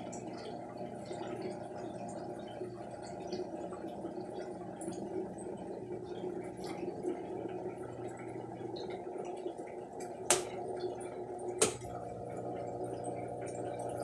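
Brastemp 6th Sense top-loading washing machine with its drum still, its pump humming steadily while water trickles and drips inside the tub. Two sharp clicks come about ten and eleven and a half seconds in.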